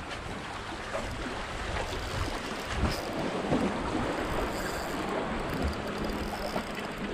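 Sea waves washing against concrete breakwater blocks, with wind buffeting the microphone.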